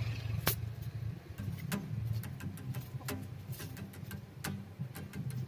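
Irregular sharp clicks, one to three a second, over a steady low rumble.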